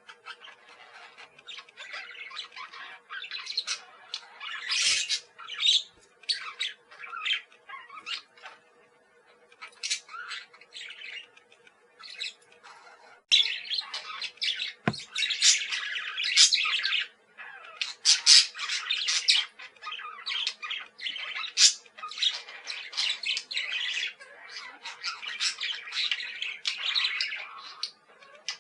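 Parakeets chattering in rapid, overlapping chirps and squawks. The calls are scattered at first and become a near-continuous flock chatter from about halfway through. A faint steady hum lies underneath.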